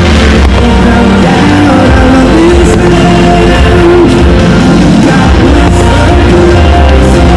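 Loud rock music with a singing voice, dense and continuous.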